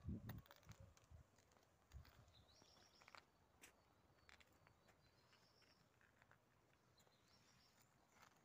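Near-silent garden ambience: three faint, high bird calls, short whistled phrases, in the middle, with a few soft footstep thumps near the start and about two seconds in.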